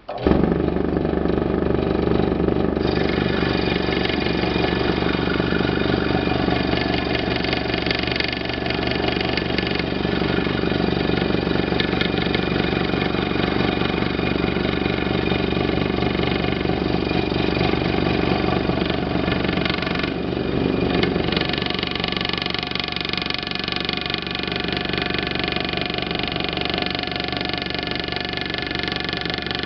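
Scroll saw with a spiral blade starting up and running steadily, the blade cutting wood as the workpiece is turned in different directions.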